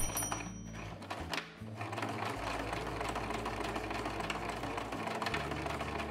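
Electric sewing machine stitching a seam through folded fabric, running steadily after a short pause near the start.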